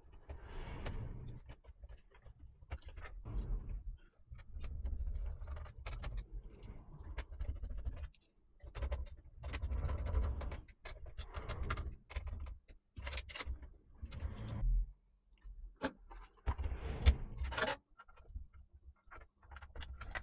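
Irregular clicks, knocks and scrapes of computer parts being handled as a desktop PC is reassembled.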